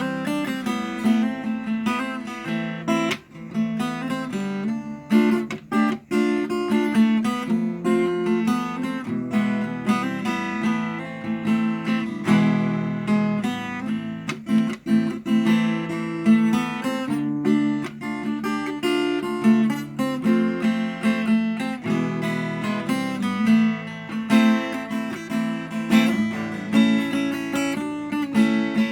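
Acoustic guitar played solo: a continuous run of plucked notes and strummed chords.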